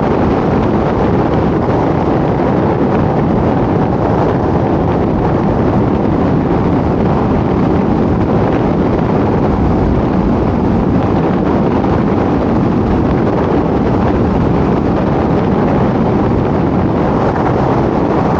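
Steady wind and road noise of a car driving along a country highway.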